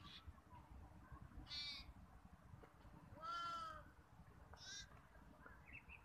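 Goats bleating: three faint calls, the middle one, about three seconds in, the longest and loudest.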